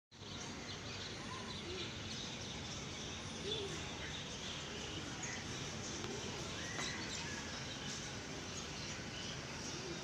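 Steady outdoor background noise with faint, scattered bird chirps.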